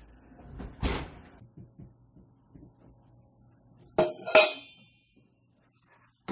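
Kitchen handling noise as a hot speckled enamel roasting pan comes out of the oven onto the stovetop: a dull knock about a second in, then two sharp metallic clanks with a brief ring about four seconds in, from the pan and metal tongs.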